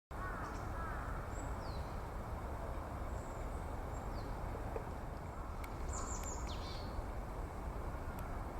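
Willow tit calling: thin, high notes that fall in pitch, a few scattered ones, then a short run of them about six seconds in. Steady background noise runs underneath.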